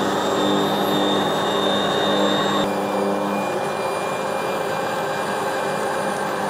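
Bosch MUM kitchen machine's meat grinder attachment running steadily under load, its motor humming as meat is pressed down the feed tube with the plunger and minced through the perforated disc. Its tone changes suddenly about two and a half seconds in.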